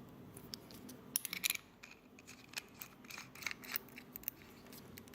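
Small metal and glass parts of a sub-ohm vape tank being handled and screwed together: scattered light clicks and scrapes, with a quick run of clicks a little over a second in.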